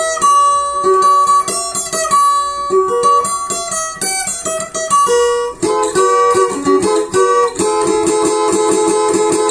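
Cavaquinho being strummed through its Brasa Som pickup, chord after chord with the strings ringing. Near the end it turns into a fast, even strum on a single chord.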